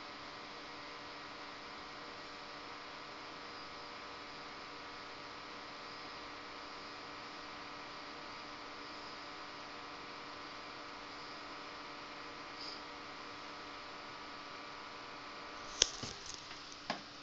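Steady hum and hiss with several faint steady tones from a powered-on PC test bench with its CPU cooler fan running. Near the end come a few sharp knocks.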